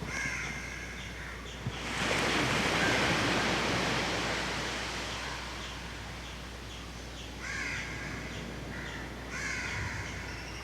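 Harsh bird calls in short series, once near the start and again twice near the end, over a rush of noise that swells about two seconds in and fades away.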